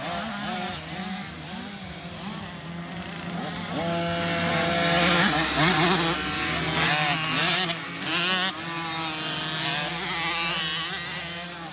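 Small two-stroke youth dirt bikes buzzing and revving, their pitch rising and falling as the throttle opens and closes. Several engines are heard at once, and one, a Husqvarna TC50, comes close and is loudest around the middle.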